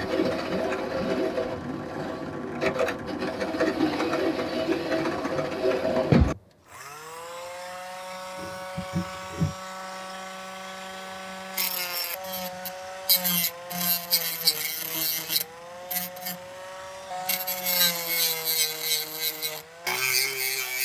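A drill press spins a part while a flat file is held against it: a steady rasping over the motor's hum. Then a small handheld rotary tool spins up with a brief rising whine, and from about halfway its disc grinds the metal vise body in repeated bursts over the tool's steady whine.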